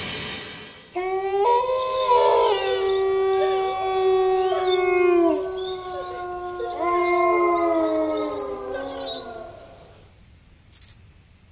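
A pack of wild canids howling together: several long, overlapping howls at different pitches that slide down at their ends, in two waves, over a steady high trill of crickets.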